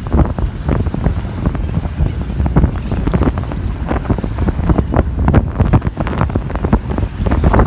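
Strong wind buffeting the microphone: a loud low rumble with uneven gusts, possibly over the sound of surf.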